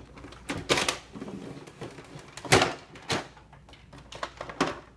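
Plastic Barbie pop-up camper toy being pulled open, its roof section lifted and unfolded: a string of sharp plastic clicks and knocks, the loudest about two and a half seconds in.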